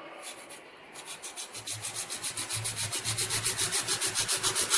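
A can being cut by hand with a blade, in rapid back-and-forth scraping strokes about five a second. The strokes start faint about a second in and grow louder.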